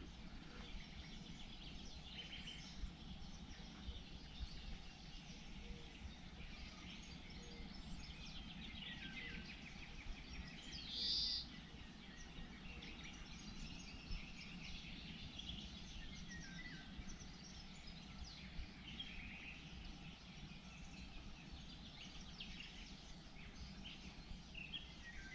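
Several small birds singing and chirping over a low, steady background rumble, with one louder, short high call about eleven seconds in.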